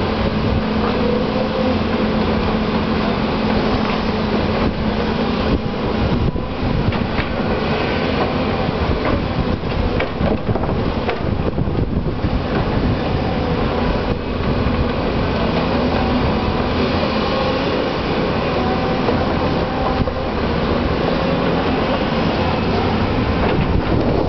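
Volvo crawler excavators' diesel engines running under load as they dig and load soil, with occasional knocks of the bucket and tracks against earth and stones. A steady engine hum in the mix fades about six seconds in.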